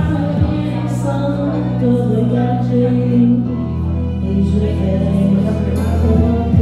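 Karaoke backing track playing over a hall's PA: sustained low keyboard chords that change about halfway through, with a melody line over them.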